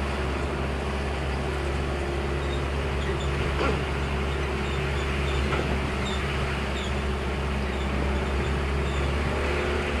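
Engine of a tour shuttle vehicle running steadily as it drives along a rough track, with road and wind noise, heard from inside the open-sided cabin.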